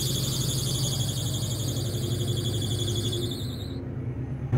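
The 1986 Chevrolet Caprice Classic's dashboard warning buzzer sounds with the driver's door open, a steady high buzz that cuts off near the end. A steady low hum runs underneath.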